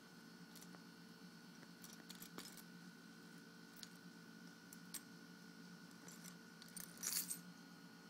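A ring of car keys jingling as a kitten bats at it on carpet: scattered faint metallic clicks, with one louder jangle about seven seconds in, over a faint steady hum.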